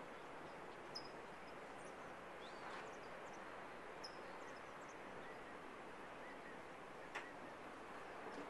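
Steady hiss of distant surf breaking on the beach, with small birds chirping briefly now and then and a couple of faint clicks.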